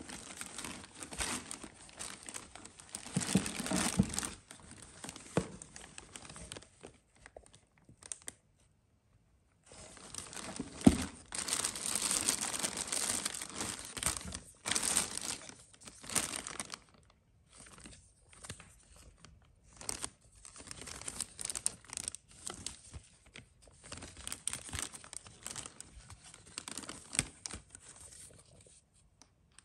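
Clear plastic bags crinkling and rustling in bursts as hands rummage through them, with a pause about a third of the way in and a single sharp knock about 11 seconds in.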